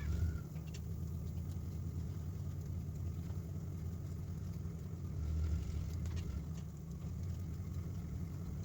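An old pickup truck's engine running steadily as it drives, a low rumble that swells louder for a moment about five seconds in.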